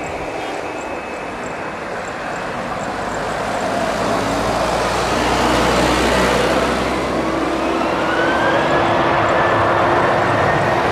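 Boeing 737-800's CFM56 jet engines running as the airliner rolls, growing louder about four seconds in, with a whine that rises in pitch from about seven seconds in and then holds steady.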